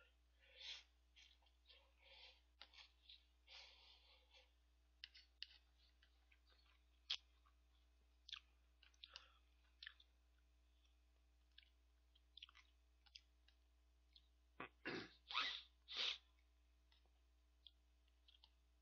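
Person slurping and chewing instant cup ramen noodles close to the microphone: noisy slurps in the first few seconds, scattered small clicks and mouth smacks, then three louder slurps about fifteen seconds in.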